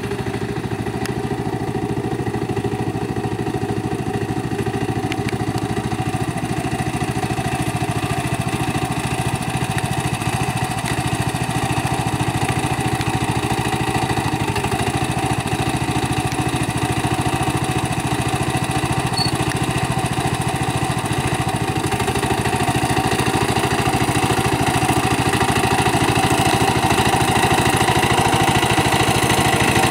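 Small engine of a homemade tractor running steadily as the tractor is driven and works its implements, with a fast even firing beat; it grows a little louder over the last several seconds.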